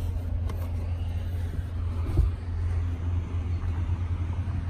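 A steady low rumble with a few light knocks, the clearest about two seconds in, as the carpeted cargo-floor panel is lowered back over the spare tire.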